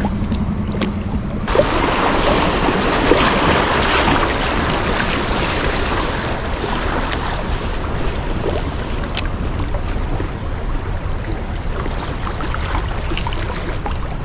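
Rushing, choppy river current around a kayak drifting through fast water. It swells suddenly about a second and a half in, with wind buffeting the microphone underneath.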